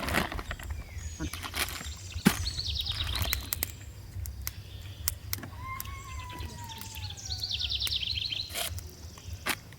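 Birds calling: two bursts of rapid high trills and one long falling whistle, over a low steady hum with scattered sharp knocks and clicks.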